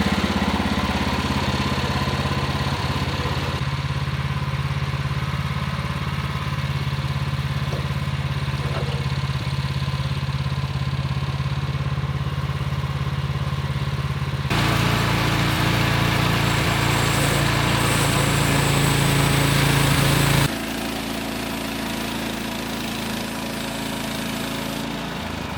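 Small gas engine of a portable bandsaw sawmill running steadily, louder and harsher for about six seconds past the middle, then settling back abruptly.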